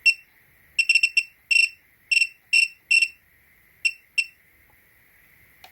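Bench power supply's built-in buzzer giving short, high electronic beeps as its encoder adjustment knob is clicked to set the digits. There are about a dozen beeps, irregularly spaced, with a quick run of four or five about a second in.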